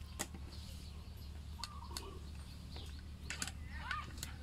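A few light clicks and taps of metal parts as the opened head of an electric cloth cutting machine is handled, over a low steady hum. Short bird chirps sound about a second and a half in and again near the end.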